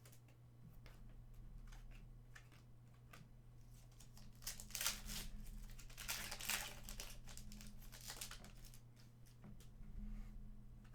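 Foil wrappers of hockey card packs crinkling and tearing as packs are opened and cards handled, with a steady low hum underneath. The crinkling comes in two spells, the louder about halfway through.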